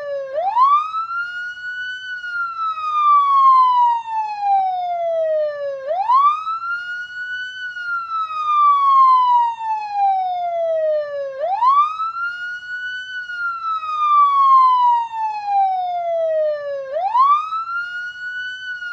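Police siren sounding a slow wail: the pitch climbs quickly, then falls slowly, starting over about every five and a half seconds, four rises in all.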